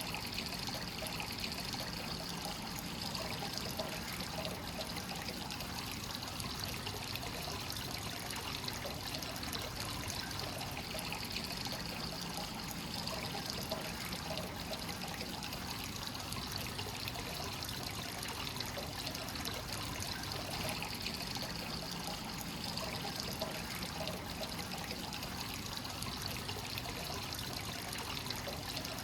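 Hot spring water flowing continuously from the source spout into a bath, a steady trickling and pouring splash with no change in strength.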